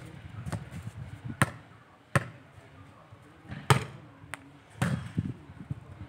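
A volleyball being struck and bouncing: a string of sharp slaps and thuds, about six in all, unevenly spaced, the loudest near the middle.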